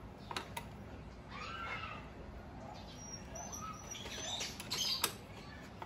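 A few sharp metal clicks from a socket wrench and a spanner working a fender bolt, the loudest near the end, with faint birds chirping in the background.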